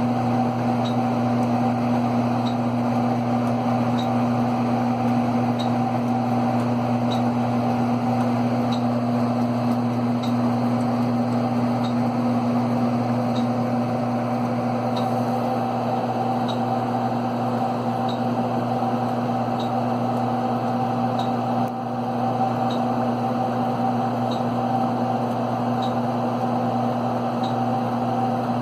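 Steady hum of a running PDP-12 minicomputer's cooling fans and power supplies, a constant mains-frequency drone with fan noise, with a faint tick about every one and a half seconds.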